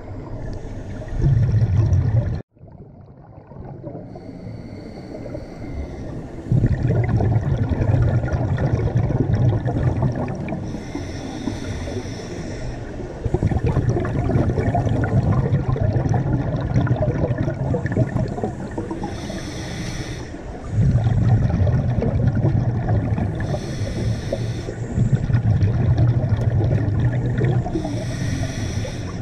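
A scuba diver breathing slowly through a regulator underwater: short hissing inhalations alternate with long, loud bubbling rumbles of exhaled air, over several breaths. The sound cuts out briefly about two and a half seconds in.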